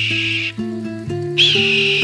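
Northern goshawk giving long calls, each held at one high pitch. One call ends about half a second in and the next begins a little past the middle, over plucked acoustic guitar music.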